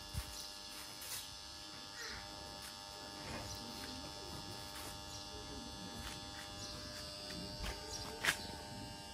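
Steady electrical-sounding hum made of several fixed tones, with a few sharp clicks and soft knocks; the loudest click comes about eight seconds in.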